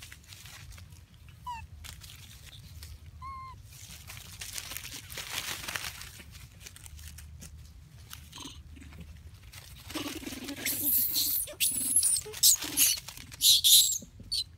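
Long-tailed macaques screaming: a run of loud, shrill, high-pitched calls over the last four seconds. Before that there are two faint short squeaks, one about one and a half seconds in and one about three and a half seconds in, and some rustling.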